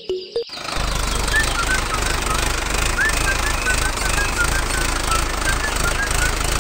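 Small motor of a DIY model tractor running as it drives, a dense rapid rattle with a low steady hum that starts suddenly about half a second in. A row of faint short chirps sits over it.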